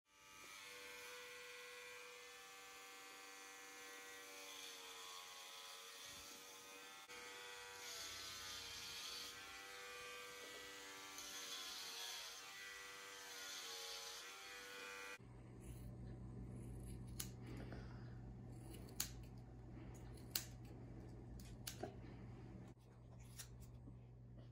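Background music with sustained notes for about the first fifteen seconds. Then electric hair clippers buzzing steadily, with a series of sharp clicks of scissors snipping hair.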